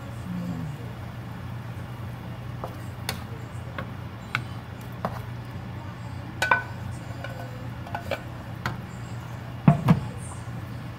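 Scattered clinks and knocks of cookware being handled, a pot and a wok with a wooden spatula, ending in a heavier double knock, over a steady low hum.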